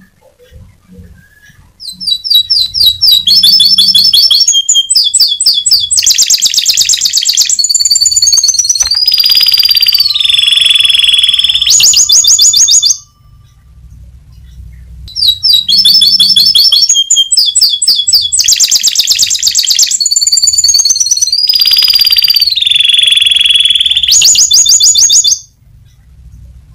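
Domestic canary singing loudly in fast, high trills and rolls: two long song phrases of about ten seconds each, nearly the same in pattern, with a short pause between them.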